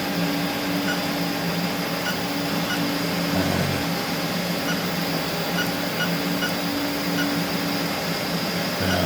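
Steady hum of a powered-up 1996 Haas CNC lathe, holding a low tone. Faint short beeps come here and there from its control keypad as the hours screen is called up.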